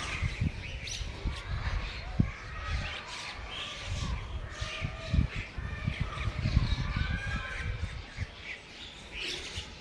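A flock of birds calling and chattering, with many short overlapping chirps throughout, over low rumbling bumps.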